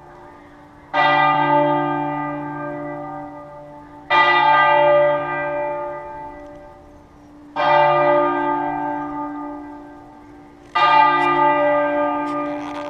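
A single church bell tolling with four strikes about three seconds apart. Each strike rings out with the same set of overtones and fades slowly before the next.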